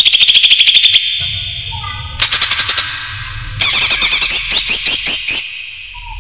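Cucak ijo (green leafbird) song played as a trapping lure: three bursts of fast, rattling runs of sharp high notes, the last and longest ending in a series of down-slurred whistled notes.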